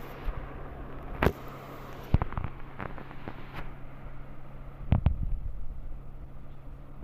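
Camera-handling noise: a few sharp knocks and bumps as the phone is moved and a hand reaches in to stroke a kitten on a tiled floor, over a steady low hum. One loud knock comes just after a second in, a cluster follows between two and three and a half seconds, and another loud one comes about five seconds in.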